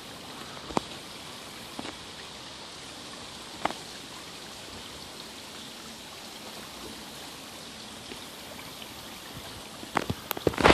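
Spring water spilling down a rock face and splashing onto the rocks below, a steady hiss. A few footsteps on loose rock come near the end.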